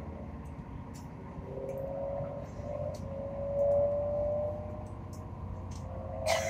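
Inside the coach of a Hitachi Class 802 bi-mode train running on its diesel engines as it accelerates away from a station: a low rumble under a whine that rises slowly in pitch, with sharp rattles from loose fittings in the brand-new coach, the loudest one near the end.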